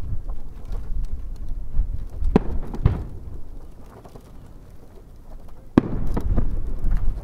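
Aerial firework shells bursting: two sharp bangs about two and a half and three seconds in, then the loudest bang near six seconds followed by a quick run of smaller reports, over a low rumbling echo.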